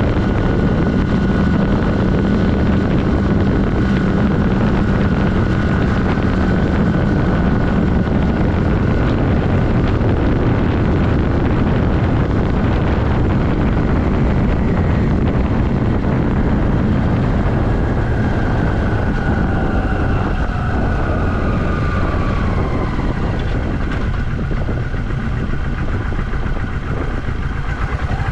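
1982 Yamaha XS400 Maxim's air-cooled parallel-twin engine running at a steady road speed over loud wind rush. About two-thirds of the way in, its pitch falls over several seconds as the bike slows.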